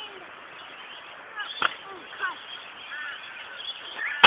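Sharp knocks of a BMX bike on a concrete skatepark bowl, one about a second and a half in and a louder one near the end, with short chirping calls in between.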